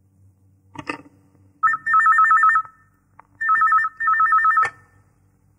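A telephone rings twice with an electronic warbling ring, each ring a fast trill between two tones. A short click comes about a second in, and another click cuts off the second ring.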